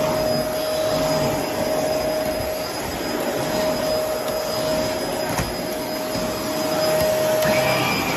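Shark upright vacuum cleaner running as it is pushed over a hardwood floor, its motor giving a steady whine over the rush of air. Near the end the tone of the whine shifts.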